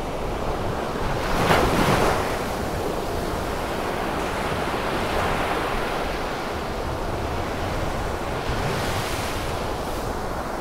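Ocean surf breaking on a rocky shore: a steady wash of waves, with a louder wave crash about a second and a half in and another surge near the end.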